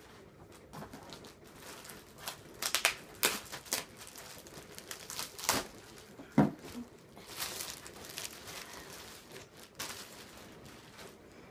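Clear plastic bag crinkling and rustling in irregular bursts as it is pulled off a laptop and crumpled by hand, with a sharp knock about six seconds in.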